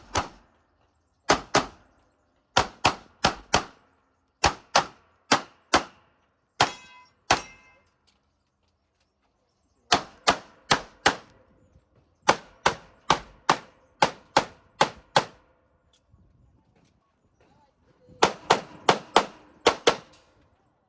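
CZ Shadow 2 9mm pistol firing rapid shots, mostly in quick pairs about a third of a second apart, in strings of four to nine shots with a pause of about two seconds in the middle.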